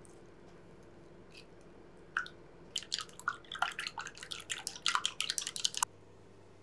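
An egg cracked open about two seconds in. Then wooden chopsticks beat the egg in a small glass bowl, with quick clicking taps against the glass for about three seconds that stop suddenly.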